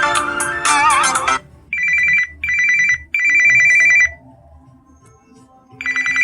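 Samsung Galaxy phone ringtones playing back to back. A melodic electronic tune ends about a second in, followed by a trilling, old-phone-style electronic ring in three short bursts, a pause, and a fourth burst near the end.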